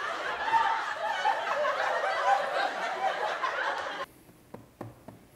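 A crowd of teenagers laughing and chattering together, cut off suddenly about four seconds in, leaving a quiet room with a few faint ticks.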